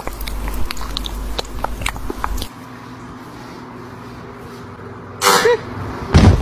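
Cartoon sound effects: a low rumble with scattered clicks for about two and a half seconds, then a quieter steady hum. Near the end come a brief wavering, warbling sound and a short, loud low blast.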